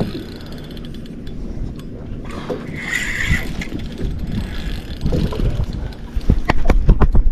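Fishing spinning reel being cranked as a hooked redfish is brought alongside, then repeated loud splashing as the fish thrashes at the surface and is scooped into a landing net in the last couple of seconds.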